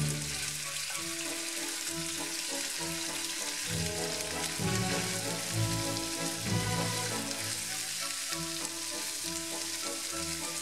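Cubed raw chicken breast sizzling as it fries in hot avocado oil in a nonstick pan, stirred and spread with a spatula; a steady hiss, with background music underneath.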